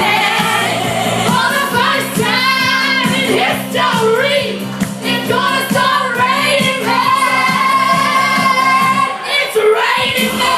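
Music with singing: voices over steady held low chords, which drop out briefly near the end.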